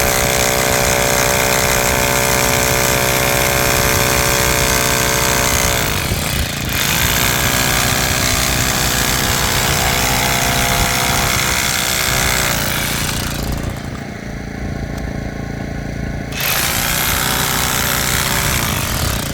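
Jackhammer breaking hard-packed soil, hammering steadily in long runs. It stops briefly about six seconds in, and the hammering drops away for a few seconds past the middle, leaving a lower running sound before it starts again.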